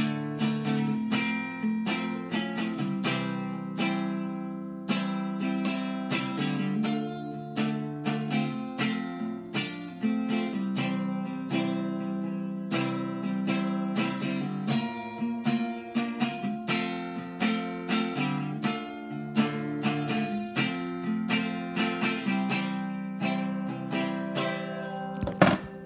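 Acoustic guitar with a capo, strummed steadily and continuously. Near the end a brief knock from the phone being handled.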